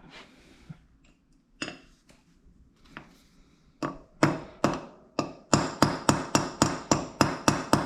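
Hammer striking metal while driving the reversing lever of a half-inch Proto 5449 ratchet down so it stays in place. A few scattered light taps come first, then from about four seconds in a steady run of sharp, ringing metal-on-metal blows, about three a second.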